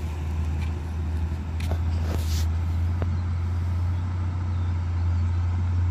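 Diesel truck engine running with a steady low drone, and a few short scuffs of noise about two seconds in.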